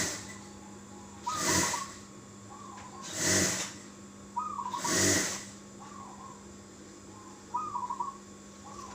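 Zebra dove (perkutut) cooing, repeating its short stuttering phrase about every second and a half. Four loud whooshes of rushing noise, the loudest sounds here, come in the first half over a steady low hum.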